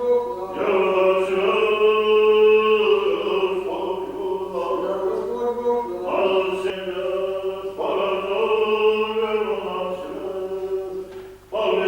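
Orthodox church choir singing a slow liturgical chant in long held chords, phrase after phrase with short breaks between.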